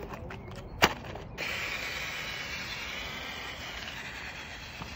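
A single sharp knock about a second in, then the steady whine of a cheap electric RC rock crawler's motor and gearbox as it drives across tarmac.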